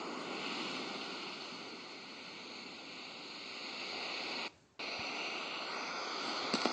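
Steady rushing water noise like surf washing on a shore, briefly cutting out about four and a half seconds in. A couple of sharp clicks come in just before the end.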